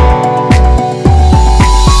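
Electronic background music with a heavy beat of deep bass kicks that drop in pitch.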